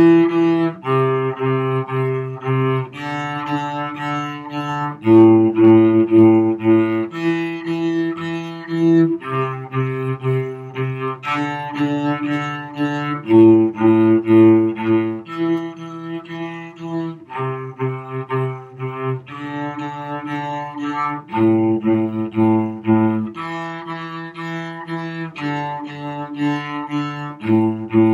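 Cello played with the bow: a low accompaniment line of long held notes, each lasting about two seconds before the pitch changes.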